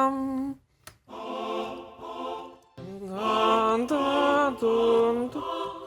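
Choir singing held vowel notes in a slow line, a few notes sliding up into pitch, with short breaks between phrases.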